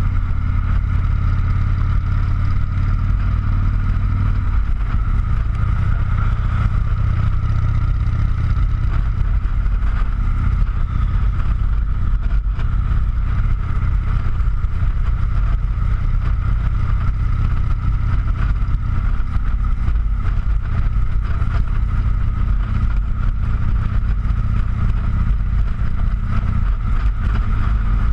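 Motorcycle engine running steadily at cruising speed, heard from the bike itself, under a steady high-pitched hum. The engine note shifts slightly about four seconds in and again near the end.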